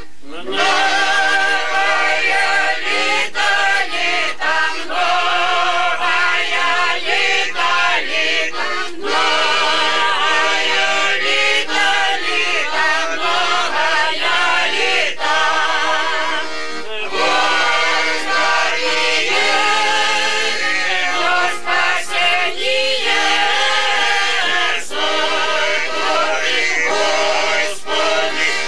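A small group of men and women singing a Ukrainian Christmas carol (koliadka) together, with accordion accompaniment.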